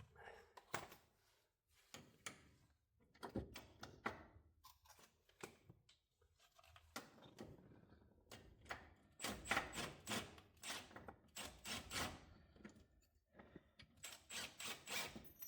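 Hand tools on metal suspension parts: scattered light clicks and knocks, with a quicker run of clicks from about nine to twelve seconds in.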